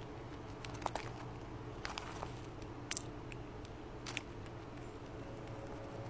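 Fox squirrel feeding from a seed bowl right at the microphone: irregular sharp crunches and clicks as it cracks and chews seeds, about five louder ones, over a steady low hum.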